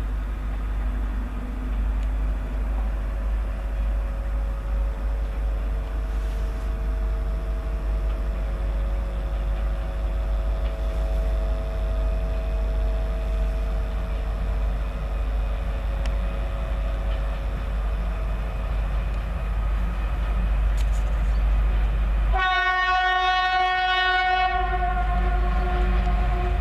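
Freight train approaching with a steady low rumble, its locomotive horn sounding one long blast about 22 seconds in that lasts about four seconds.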